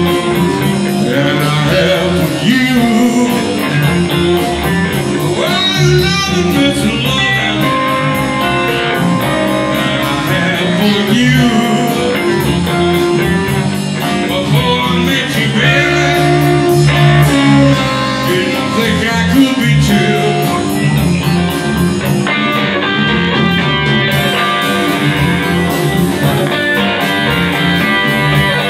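A live blues band playing a minor-key blues: electric guitars, bass, drums and piano, with a man singing over it.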